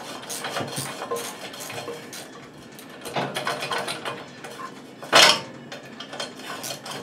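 Hand tools and metal engine parts clinking and scraping as a small tiller engine is being taken apart: a run of uneven light clicks, with one louder clank about five seconds in.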